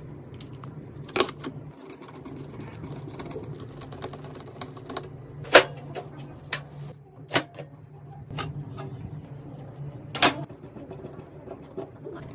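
Sharp clicks and knocks of computer parts being handled and fitted together during a PC build, coming irregularly, the loudest about a second in, midway and about ten seconds in, over a steady low hum.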